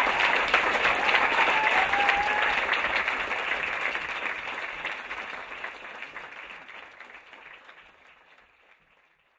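Theatre audience applauding, a dense patter of many hands clapping that gradually fades out to silence over the last several seconds.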